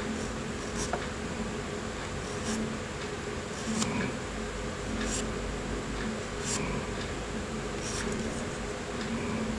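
Short scraping strokes of a gritty needle file across the edge of a small model-car part, about one stroke every second or so, over a low steady hum.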